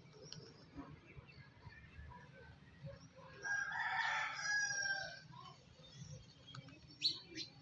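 A bird calling once: a single long pitched call of just under two seconds in the middle, followed near the end by a couple of short sharp clicks.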